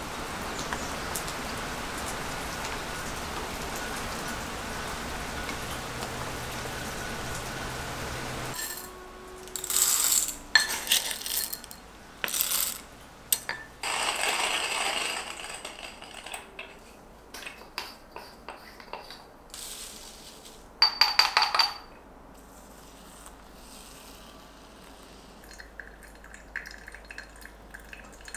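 A steady hiss that cuts off abruptly after about eight seconds, then dishes and cutlery clinking and being set down, with a quick run of ringing clinks near the end.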